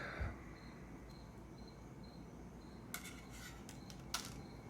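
A few light clicks and taps of the laptop's plastic screen bezel being handled, clustered about three seconds in and again near four seconds.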